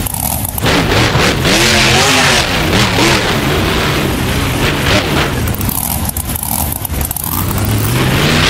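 Monster truck engine revving hard, its pitch rising and falling again and again. It eases off briefly about two-thirds through, then revs up again near the end.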